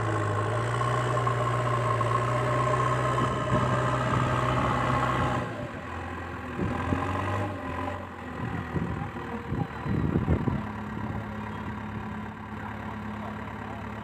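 Remote-control toy JCB backhoe loader running, with an engine-idle hum that is loud and steady, then drops to a quieter hum about five seconds in. Irregular clicking and rattling from the toy is heard around the middle.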